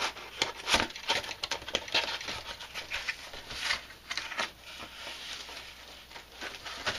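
Cardboard shipping box being opened by hand, its flaps pulled apart and scraping against each other: a run of short rustles, scrapes and knocks of cardboard, sparser after about five seconds.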